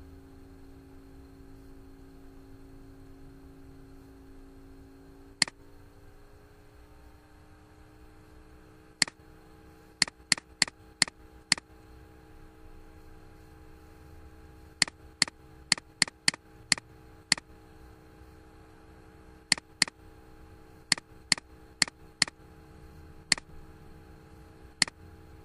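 Computer mouse clicking: about twenty sharp single clicks, mostly in quick runs of three to six, over a faint steady hum that shifts slightly in pitch about five seconds in.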